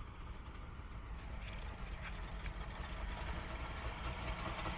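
A Wartburg 311's three-cylinder two-stroke engine running as the car drives up, growing louder as it approaches.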